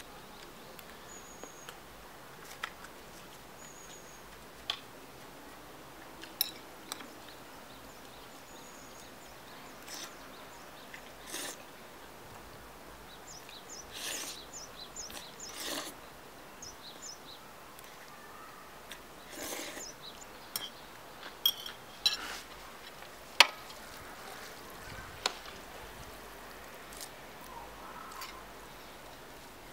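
Someone eating spicy mixed noodles: intermittent slurps of noodles, with a few sharp clinks of a utensil against the dishes, the loudest a little past the middle.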